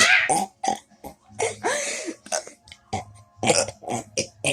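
A person burping on purpose: a series of short burps and one longer, drawn-out burp with a falling pitch about a second and a half in.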